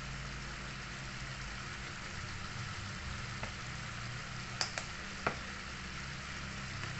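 Chicken simmering and sizzling in a pan of sweet-and-sour sauce that is cooking down, a steady hiss, with a few sharp clicks about two-thirds of the way through.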